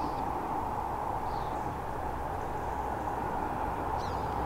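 Steady outdoor background noise on an open golf course, a low hiss or hum, with a couple of faint bird chirps.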